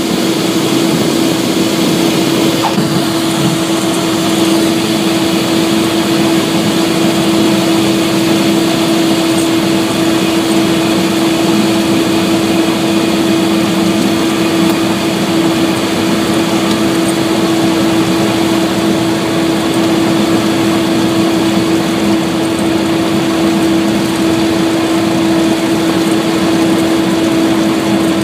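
Cessna 172's four-cylinder piston engine and propeller running steadily, heard from inside the cockpit as a constant drone with a strong steady hum.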